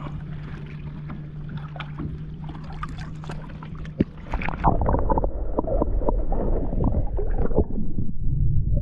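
Motorboat on the water: a steady low motor hum, then from about four seconds in louder, rougher water splashing and wash against the hull.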